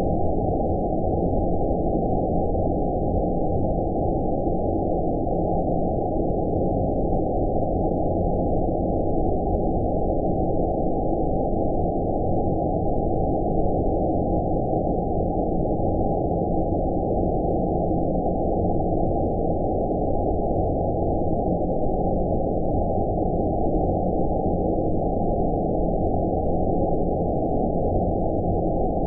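Steady low, muffled rumbling noise with all treble cut away, unchanging throughout: a 'space noise' sleep track of filtered white noise.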